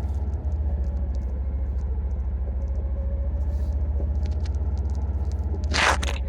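Vehicle engine running steadily, a low pulsing rumble heard from aboard the vehicle. A brief rush of noise comes near the end.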